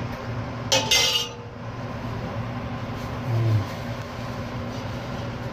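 A metal ladle clinks sharply against a cooking pot about a second in, over a steady low hum, with a short dull knock around three and a half seconds.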